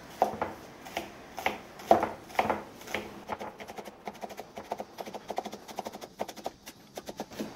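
Kitchen knife chopping green onions on a cutting board: a run of sharp taps, spaced at first and quickening to about four or five a second from about three seconds in.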